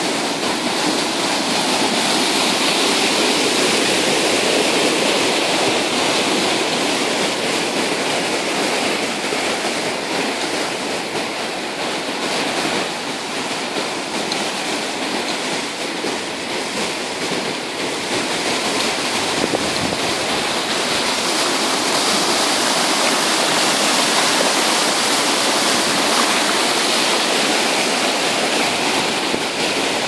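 A river in spate after rain, rushing white water over rocks in a loud, steady torrent.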